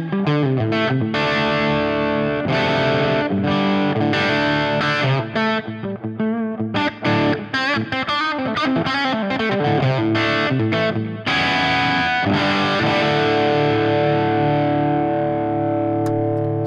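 Electric guitar with humbucker pickups played through a Fractal Audio FM3 modeller on a Friedman Small Box crunch amp model: distorted chords and riffs with delay and reverb. About eleven seconds in, a final chord is struck and left ringing for several seconds.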